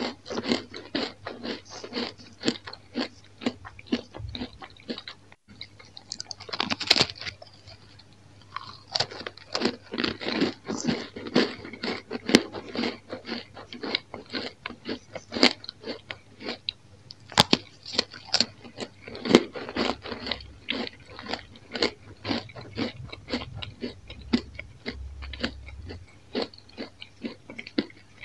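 Crisp toasted rumi-cheese bread slices being bitten and chewed, a quick run of dry crunches with now and then a louder sharp snap as a piece breaks.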